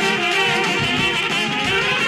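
Live Balkan brass band (trubači) playing dance music: trumpets and horns carry the melody over a steady drum beat.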